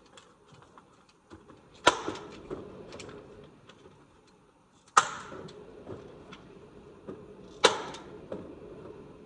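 Three single gunshots spaced about three seconds apart, each a sharp crack followed by a short ringing decay, with a few much fainter clicks between them.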